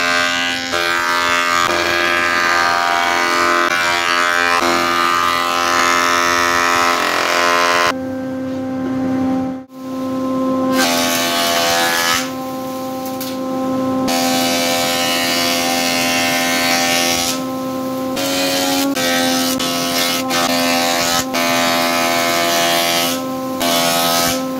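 Jointer and then thickness planer running, their cutterheads planing oak strips: a steady motor whine over cutting noise, broken by a short dropout about ten seconds in.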